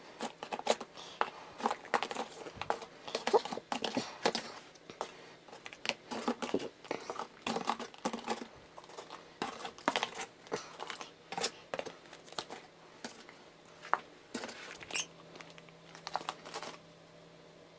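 Small lidded plastic deli cups being lifted out of a cardboard box and set down in stacks: a run of light plastic clicks, knocks and rustles that stops shortly before the end.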